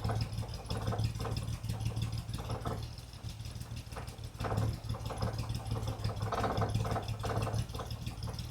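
Vauxhall Royale coupé's 2.8-litre straight-six engine idling steadily while its carburettor mixture is set, the exhaust CO settling around 1.5%.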